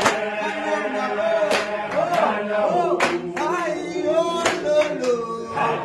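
A group of male football players singing a song together in held, sliding notes, with sharp hand claps about every one and a half seconds.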